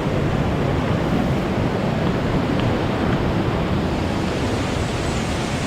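Steady rush of fast-running river water.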